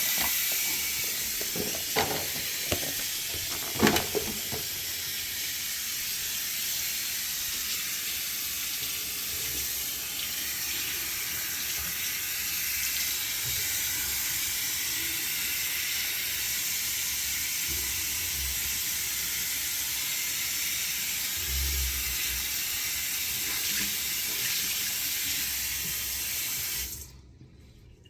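Water running steadily from a tap, then shut off suddenly near the end, with a couple of knocks in the first few seconds.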